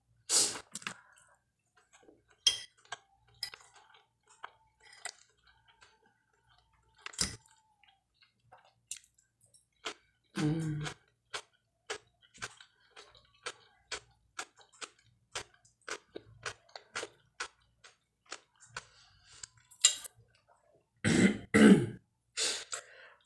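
Close-up eating sounds: chewing fried sausage and cucumber, with many short sharp clicks and a fork clinking on a glass plate. A couple of short coughs or throat-clearings break in, about ten seconds in and near the end.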